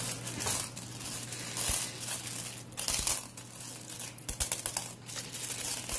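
Pennies clinking and jingling as a hand slides and sorts a pile of loose copper coins on newspaper, in a steady run of irregular clicks.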